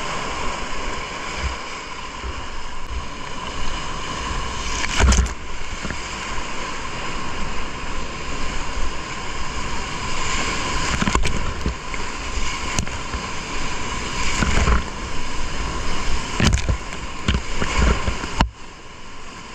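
Big-water whitewater rapids rushing loudly around a kayak, heard up close from a helmet camera, with sudden splashes as waves break over the boat and the paddle several times. The rushing drops away abruptly near the end.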